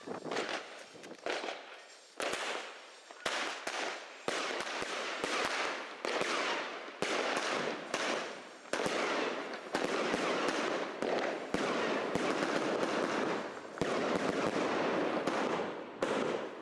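Heavy consumer firework cakes, linked together for 75 shots, firing a rapid barrage of sharp bangs over a constant crackle. The firing is sparser for about the first three seconds, then turns into a dense, loud run of shots.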